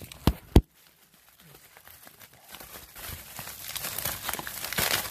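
Two sharp knocks, then plastic packaging crinkling and rustling, building from about three seconds in, as a gun brace is pulled out of its wrapping.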